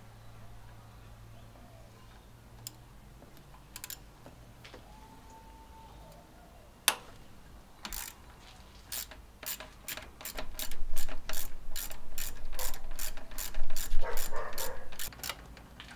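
Socket ratchet clicking as it works a 13 mm bolt on the thermostat housing: a few scattered clicks at first, then from about halfway a steady run of quick clicks, about three a second, that grows louder.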